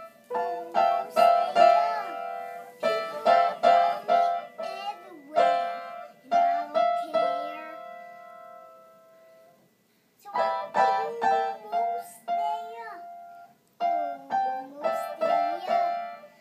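A young child playing an upright piano in short bursts of notes and singing along in a wavering voice. About eight seconds in the playing stops and a note rings out and dies away, then she starts again about two seconds later.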